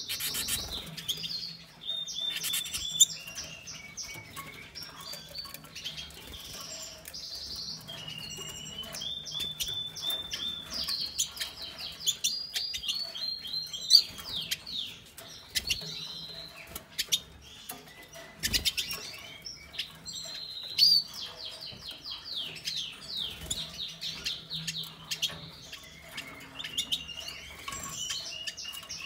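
Caged finches chirp and twitter quick, high notes throughout, with wing flutters and a few sharp splashes as a female American goldfinch and a female black-chinned siskin bathe in a plastic water tray.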